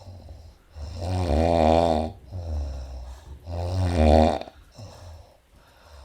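A woman snoring in her sleep: two loud, rasping snores with a rumbling pitch, about two and a half seconds apart, and a softer breath between them.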